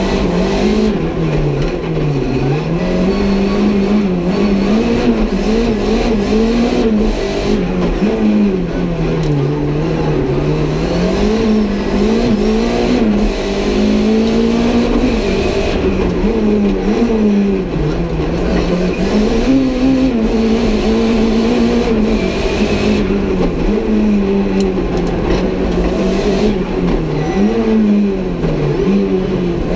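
Renault 5 GT Turbo's turbocharged 1.4-litre four-cylinder, tuned to about 300 hp, heard from inside the cabin while driven hard on track. The engine note climbs and drops over and over as the car accelerates and lifts.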